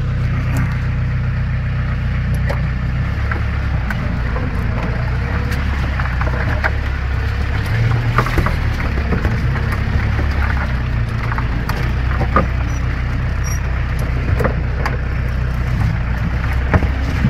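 Jeep running steadily with a low engine drone, with scattered knocks and rattles throughout.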